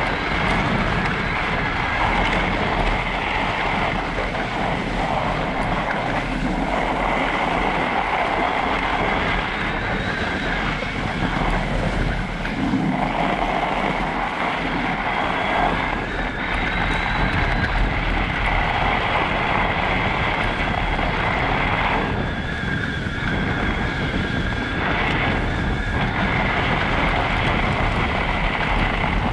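Electric mountain bike riding on packed snow: a steady high motor whine over tyre noise, with wind rumbling on the microphone.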